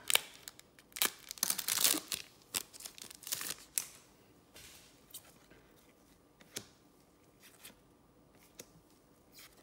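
A trading-card pack wrapper being cut open with scissors and crinkling, in a quick run of sharp cuts and rustles, loudest about two seconds in. After about four seconds only faint clicks and rustles of the cards being handled remain.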